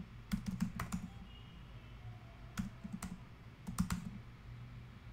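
Computer keyboard typing: keystrokes clatter in short runs with pauses between, one run in the first second, a few keys near the middle and another run just before the end.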